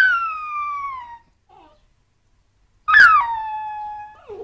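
Cocker spaniel puppy giving two long, high whining cries that slide down in pitch, about three seconds apart; the second ends in a short lower note.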